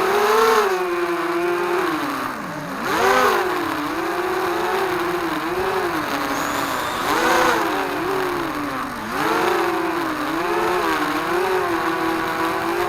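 Racing quadcopter's electric motors and propellers whining, the pitch rising and falling constantly with the throttle. About two and a half seconds in it drops low, then climbs sharply.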